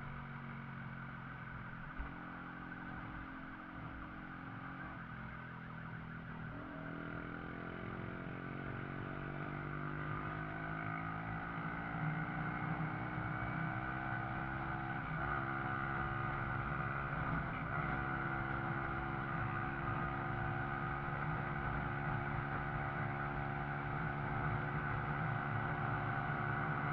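Shineray Viúva Negra motorcycle engine running under way, its pitch climbing slowly as it gathers speed, with a few brief dips.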